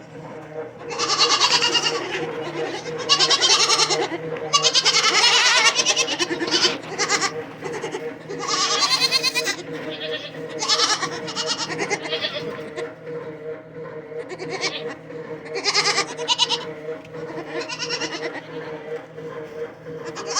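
Dairy goats bleating over and over, loud quavering calls that overlap and come every second or two, with a steady hum underneath.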